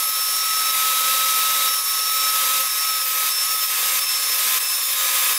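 Table saw running with a steady whine, its blade taking repeated passes into the end of a wooden piece to cut a half-lap notch.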